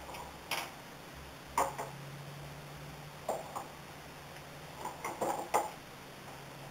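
Wool combs in use: a hand-held comb with metal tines stroked through wool on a table-clamped comb, giving short irregular taps and clicks as the combs meet, with a quick cluster of taps about five seconds in.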